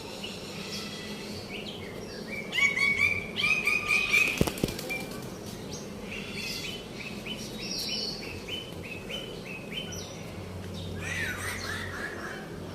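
Birds chirping in repeated series of short, high notes, loudest early on, with one sharp click partway through.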